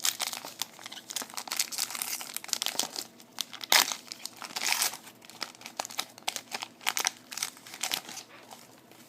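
A Panini Prestige card pack's wrapper crinkling and tearing as it is opened and handled, in a run of irregular sharp crackles, loudest a little under four seconds in.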